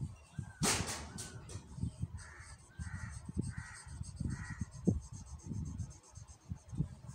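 A crow cawing four times in a row, about half a second apart, starting a couple of seconds in. A sharp burst of noise near the start is the loudest sound. Under it runs the scratch and knock of a marker pen drawing on paper.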